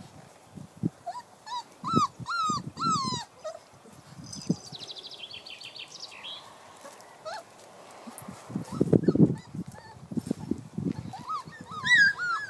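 Entlebucher Mountain Dog puppies whining and yipping: a run of short, high, rising-and-falling whines about two seconds in, and another near the end. In between come a brief high twittering trill and some low rustling thuds.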